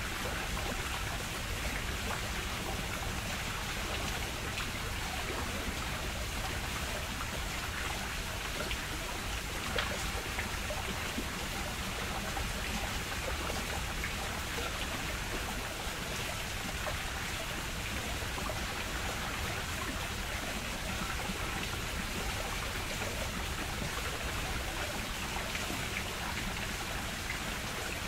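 Steady rush of flowing water, even and unbroken, with a faint single click about ten seconds in.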